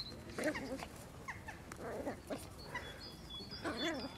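Two puppies play-fighting, giving short yips and whines now and then, with a longer wavering whine near the end.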